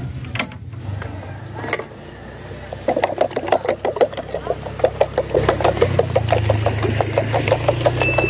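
A motorbike engine running steadily at low revs, with a fast, uneven run of light metallic clicks, about four or five a second, starting about three seconds in as utensils are worked at a street-food cart.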